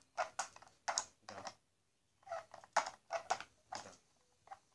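Toy cars being handled on a bed: a string of short, uneven clicks and clatters with brief pauses between them.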